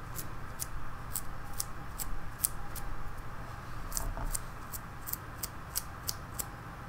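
Fingertip flicking the bristles of a flat paintbrush loaded with watery white-yellow acrylic, spattering specks of paint for stars: a string of short, crisp flicks, two or three a second and unevenly spaced.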